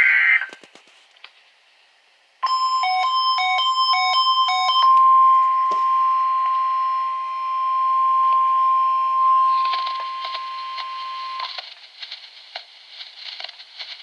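NOAA Weather Radio warning alarm tone, a steady 1050 Hz tone, heard through a radio. It starts about two seconds in and holds for about nine seconds. For its first couple of seconds an alternating two-tone beeping plays over it. Before the tone comes the brief tail of a buzzing data burst, and after it comes radio static hiss with crackles.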